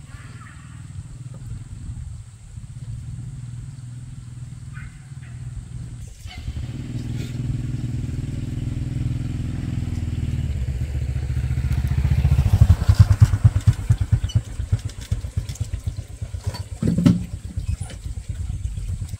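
Small motor scooter engine running. It is steady at first, grows louder about six seconds in, and turns to a rapid, uneven pulsing in the second half. It stops abruptly at the end.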